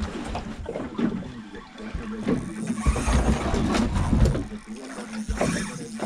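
Water slapping against a small boat's hull, with gusts of wind rumbling on the microphone, heaviest a few seconds in, over a steady low hum.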